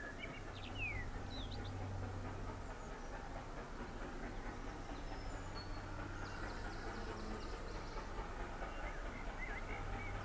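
Distant LNER A4 Pacific steam locomotive, 4464 Bittern, approaching at about 61 mph: a faint, steady rumble that grows slightly louder as it nears. Birds chirp a few times.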